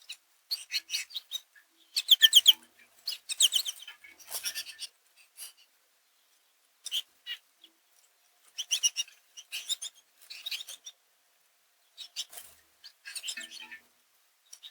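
American goldfinches twittering: short bursts of rapid, high chirps coming again and again, with short pauses between them.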